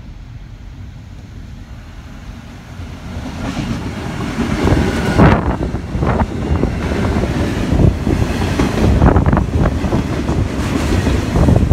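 An 81 class diesel-electric locomotive hauling a container freight train: a low rumble builds from about three seconds in and becomes loud, with irregular knocks, as the train comes through.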